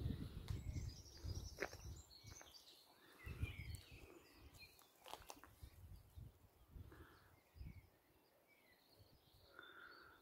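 Faint outdoor ambience: scattered birds chirping, with a low rumble in the first couple of seconds and a few light clicks.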